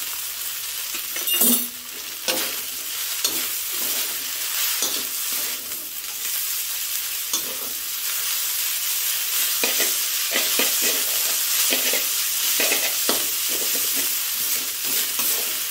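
Rice vermicelli with water mimosa sizzling in a steel wok while a metal spatula stirs and tosses it, scraping and knocking against the pan over and over. The loudest knock is a sharp clack about one and a half seconds in.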